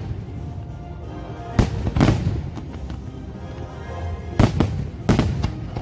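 Fireworks bursting in a sharp, loud bangs, four in all, in two pairs about a second and a half and four and a half seconds in, over the show's music playing steadily underneath.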